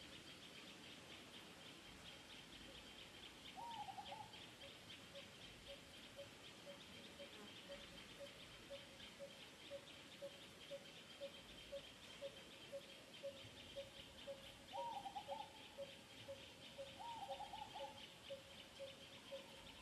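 Faint bird calls: a regular series of low pips, about two or three a second, and a few short wavering calls about four seconds in and twice near the end, over a steady high, fast-pulsing trill.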